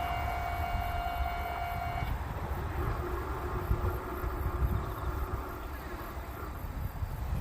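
Railway level crossing's warning bell ringing and cutting off about two seconds in, over a low rumble that slowly fades as the train moves away.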